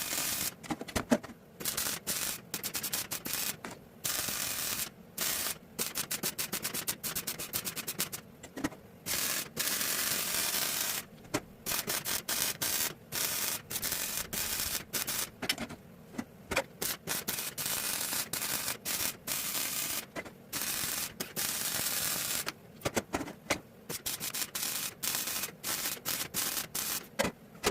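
Electric welding arc crackling and hissing in a long series of short bursts with brief pauses between them, as a seam on a steel part is welded in stitches.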